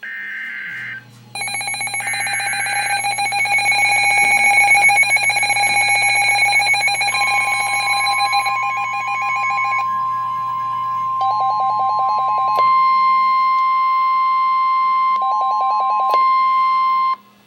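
Emergency weather alert signalling: a short burst of SAME header data tones, then electronic alarm beeping from alert receivers. A steady 1050 Hz weather radio warning tone comes in about seven seconds in, holds for about ten seconds and cuts off suddenly.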